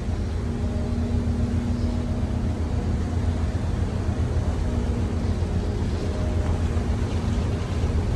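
Train ferry's engines and shipboard machinery running, a steady low rumble with a faint hum over it, as the ship manoeuvres slowly into its berth.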